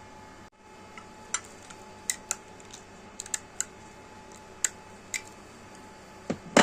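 A series of sharp, irregular clicks and taps, like small hard plastic pieces being handled, ending in a louder knock, over a steady faint hum.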